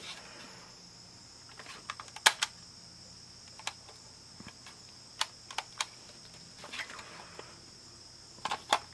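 Scattered sharp plastic clicks and taps, with a little rustling, from a small portable cassette player being handled and turned in the hands, over a steady high-pitched hiss.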